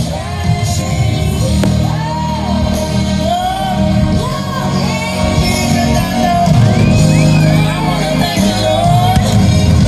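Music with a singing voice over a sustained bass.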